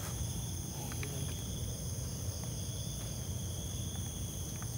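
Insects, crickets among them, trilling steadily at several high pitches over a low steady rumble, with a few faint clicks.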